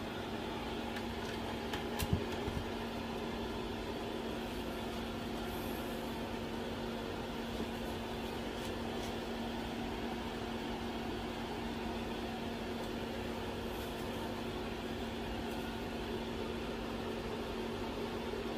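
Steady hum of a running electric fan: an even rush of air with a low constant tone beneath it. A short click sounds about two seconds in.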